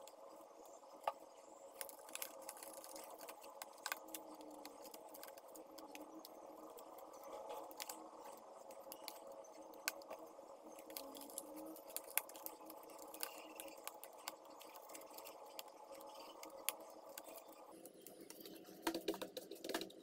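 Faint handling noise: scattered clicks, ticks and rustles as paint-stained work gloves are pulled onto the hands and the hands settle on the paper, with a cluster of clicks near the end, over a low steady hum.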